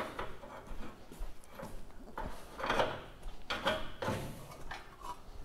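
Faint, scattered knocks and clunks of parts being handled in a workshop.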